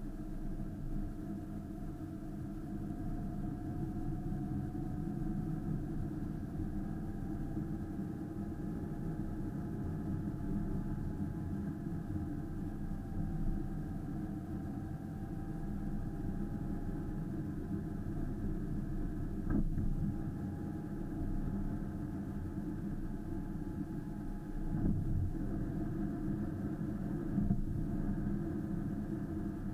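Car engine and road noise heard inside the cabin as the car drives uphill: a steady low rumble with a faint engine note that drifts slowly up and down. There are two sharp knocks, about two-thirds of the way through and near the end.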